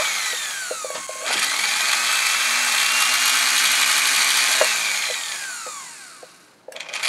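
Freshly rewired Singer 201-2 potted sewing-machine motor on a bench test run. Its whine dips and spins back up about a second in, holds a high steady pitch, then winds down to near silence and spins up again near the end. A few faint ticks come along with it.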